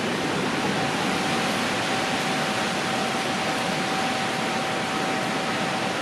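A steady, even hiss of outdoor ambient noise, with a faint steady hum that comes in about a second in.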